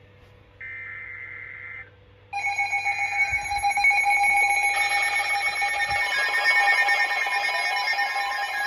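The last burst of an Emergency Alert System SAME header, a short buzzing data tone about a second long. About two seconds in, a loud steady alert tone of several pitches starts and runs on.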